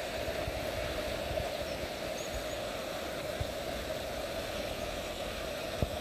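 River water flowing past the bank, a steady rushing noise with no change. A few faint high chirps come about two seconds in, and a single sharp tap sounds near the end.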